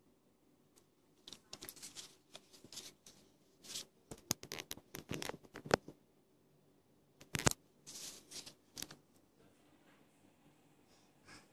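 Irregular rustling, scraping and sharp clicks in short clusters over a faint steady hum.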